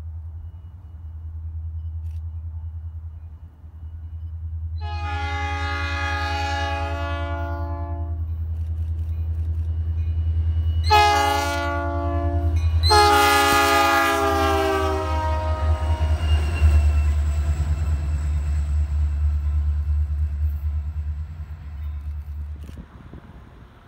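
Two diesel helper locomotives, Illinois Central 6250 leading Bessemer & Lake Erie 901, running light. The lead unit's chord horn sounds a long blast, a short one and another long one, over the steady rumble of the diesel engines, which swells as the units pass close by and fades near the end.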